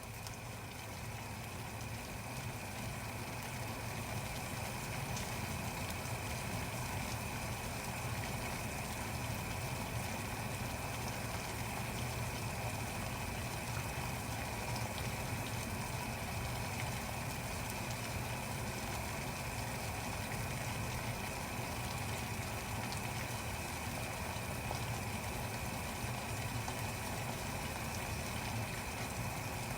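Water boiling: a steady bubbling rumble with a low hum, growing louder over the first few seconds and then holding even.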